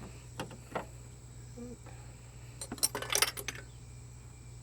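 Hard small parts clicking and clinking together as pieces are handled and fitted back onto a car radiator, with a few single clicks and then a quick cluster of clinks about three seconds in.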